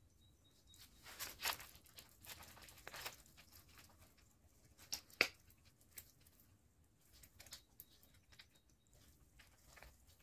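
Faint rustling and crinkling from handling a lemon tree bonsai's leafy branches during wiring, with a few sharp clicks, the loudest about five seconds in.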